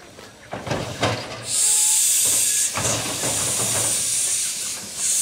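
Steam hissing from the cylinder drain cocks of a 2 ft gauge steam locomotive. The loud, steady hiss starts about a second and a half in, with a short break near three seconds. A few knocks come before it.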